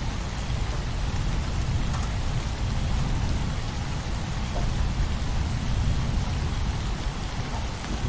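Steady rain over a continuous low rumble of distant thunder, with crickets chirping in a thin, steady high band.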